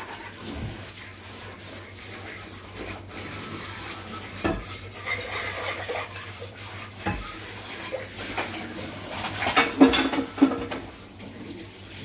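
Dishes and cutlery clinking and clattering as they are washed by hand at a kitchen sink, with a cluster of louder clatters about ten seconds in.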